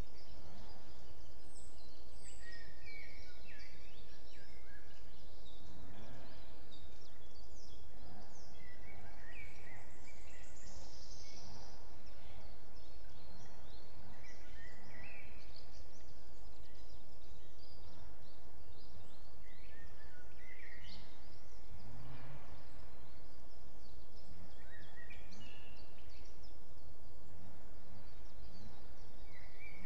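Forest birds calling and singing in short, scattered chirps and phrases over a steady low rumble.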